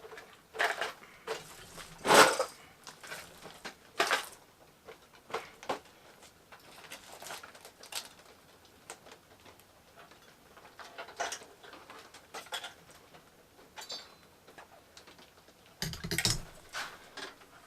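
Irregular clicks, rustles and clatters of objects being handled, with a sharper clack about two seconds in and a dull thud near the end.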